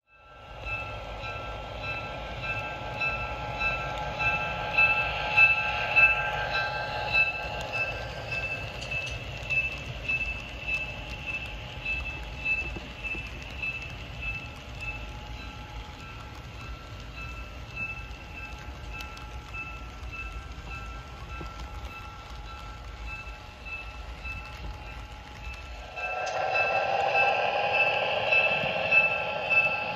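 HO scale model freight train running along the layout: a steady mechanical whine with several held pitches, pulsing in an even rhythm, over a low rumble. About 26 seconds in the low rumble drops away and the whine gets louder.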